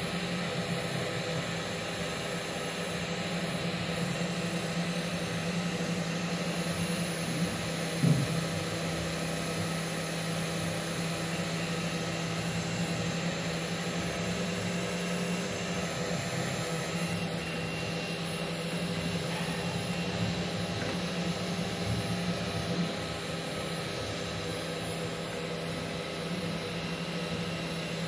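Mini five-axis vertical CNC machine carving a wooden blank, its spindle motor running with a steady hum as the tool cuts into the wood. There is a single sharp knock about eight seconds in.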